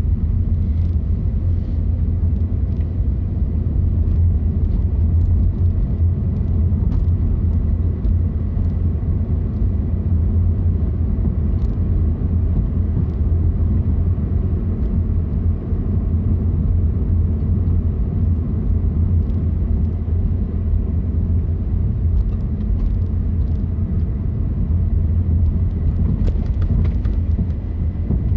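Car being driven: a steady low rumble of road and engine noise with no change in speed or gear.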